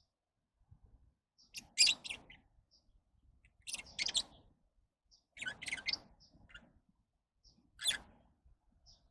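Lovebirds chirping: four short bursts of sharp, high chirps about two seconds apart, with faint single chirps between them.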